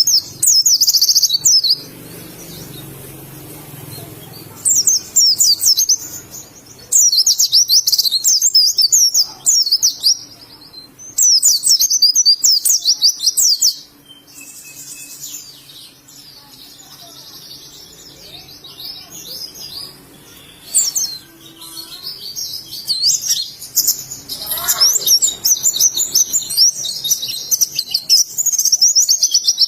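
White-eye (pleci) singing: rapid, high-pitched twittering song phrases in bursts of one to three seconds, with short pauses between, then a longer, near-continuous run of song over the last several seconds.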